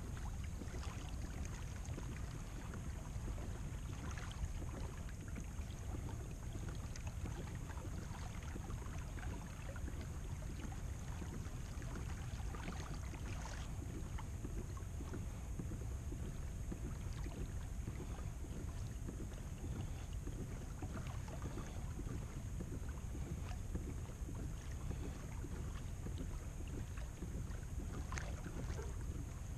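Steady low outdoor noise from a fishing kayak on calm water, wind on the microphone with faint water movement around the hull, and a few light knocks spread through it.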